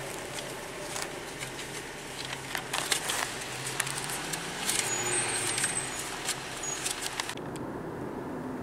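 Car interior noise: a steady engine and road hum inside the cabin, with scattered light clicks and rattles. Near the end it changes abruptly to a steadier, quieter hum with a low steady tone.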